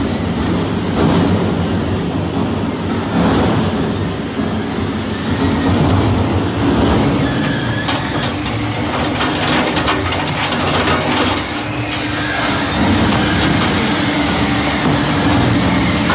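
Double-shaft shredder running and tearing up electrical wires and cables: a steady rumble with irregular sharp snaps and cracks, thickest around the middle.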